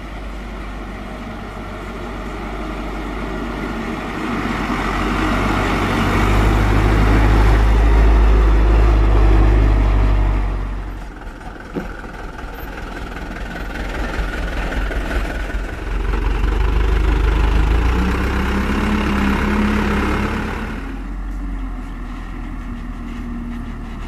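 A loaded Hino dump truck's diesel engine working up a dirt road, growing louder as it approaches. It dips sharply about halfway, pulls hard again with a slowly rising note, and settles lower as the truck moves away.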